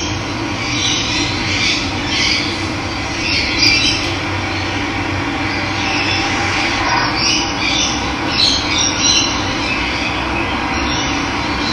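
Steady rush of running water, with birds calling in short chirps and squawks over it, several times.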